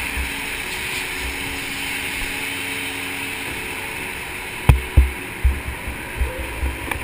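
Go-kart engine running steadily. About two-thirds of the way through there are two loud knocks, followed by several softer low thumps.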